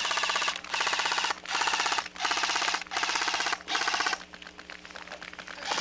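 Airsoft gun firing on full auto in about six short bursts, each roughly half a second long, then quieter scattered shots until another burst begins near the end.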